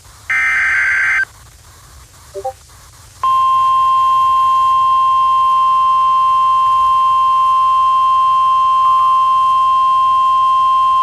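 A brief burst of EAS SAME digital header data, a raspy electronic screech about a second long. About three seconds in, the NOAA Weather Radio warning alarm tone starts: one steady high beep held for about nine seconds, the signal that a warning message is about to follow.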